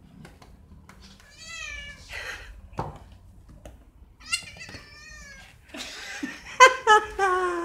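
A domestic cat meowing loudly and repeatedly in excitement. Two separate calls come first, then a louder run of meows near the end, the last one falling in pitch. A short knock comes about three seconds in.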